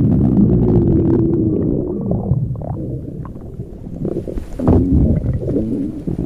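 Stomach growling and gurgling: a low, irregular rumble that eases off around the middle, then a louder gurgle about four and a half seconds in, followed by more rumbling.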